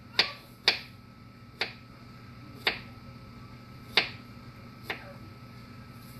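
Kitchen knife cutting a strawberry on a thin plastic cutting mat: six sharp taps of the blade against the board at an uneven pace, about one a second.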